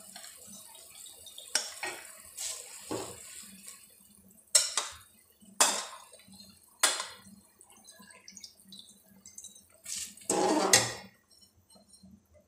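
Sharp clinks of a metal spoon against a metal cooking pot as rice goes into boiling water, about eight knocks spread out, then a longer splashing scrape about ten seconds in.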